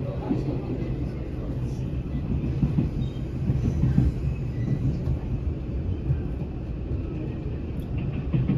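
Passenger train running, a steady low rumble with a faint hum.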